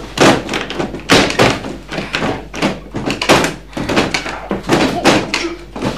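A sticking wooden window being yanked and shoved, banging and rattling in its frame in a run of irregular knocks, several of them loud. The wood sticks from the damp.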